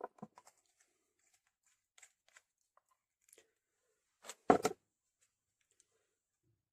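Small handling noises from fly-tying work: scattered light clicks and rustles, with a louder, brief cluster of snips or rustles about four and a half seconds in.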